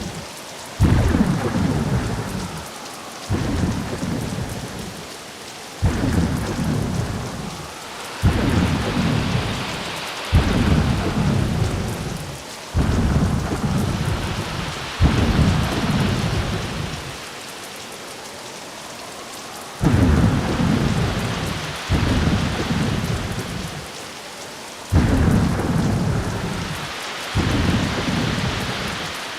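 Rain sound effect: a steady hiss of rain with a low rumble that swells suddenly and fades away, about every two to three seconds.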